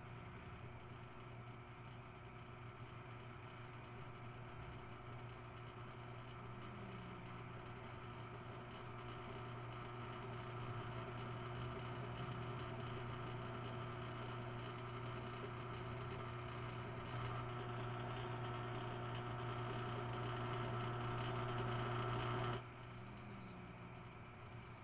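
A steady droning hum of many held tones, slowly swelling louder and then cutting off abruptly near the end.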